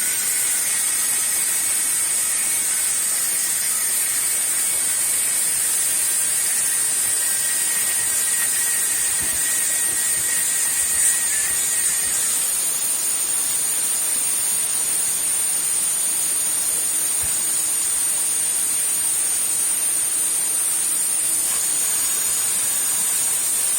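CNC router spindle running steadily: a high, even whine over a hiss, with a fainter lower tone that fades about halfway through.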